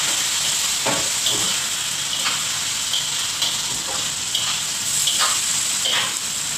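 Turmeric-marinated chicken frying in hot oil in a wok, a steady sizzle, with the spatula scraping and knocking against the wok every half second to a second as it is stirred.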